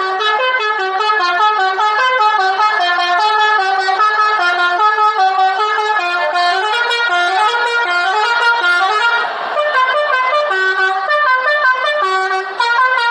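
Bus 'telolet' horn, a multi-tone musical horn, playing a quick melody whose notes step up and down in pitch without a break.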